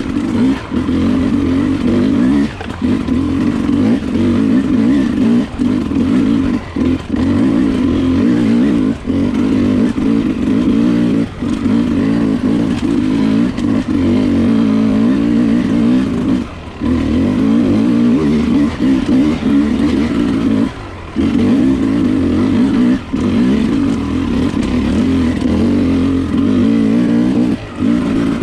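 Enduro dirt bike's engine pulling hard on the throttle, its pitch wavering up and down, with short drops in level every few seconds as the throttle is chopped or the gears shift.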